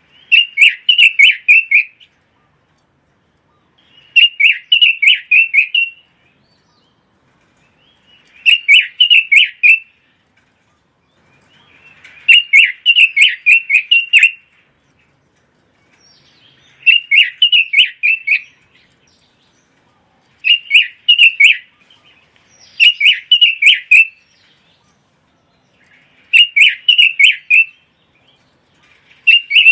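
Pekin robin (red-billed leiothrix) singing: rapid warbled phrases of about two seconds each, repeated about eight times with short silent pauses between them.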